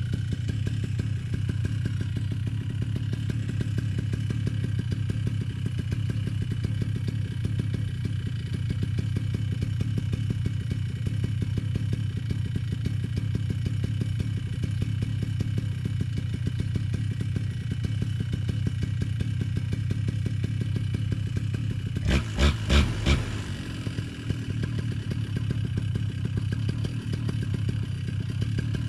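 Paramotor engine idling steadily, with four brief, louder pulses near the end.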